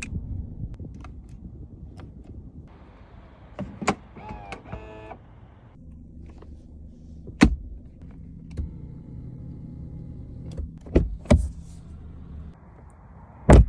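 Genesis G70's electric windows whirring as they move, over a low steady hum from the car, with sharp clunks, the loudest near the end. A brief warbling electronic tone sounds about four seconds in.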